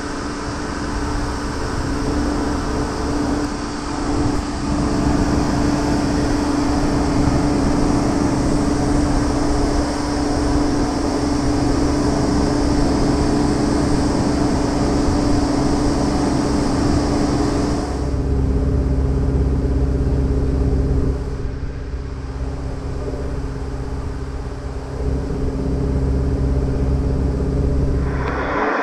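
Steady hum of machinery on an airport cargo apron, a droning tone over a low rumble. The sound changes abruptly about eighteen seconds in, losing its upper hiss, and shifts again a few seconds later.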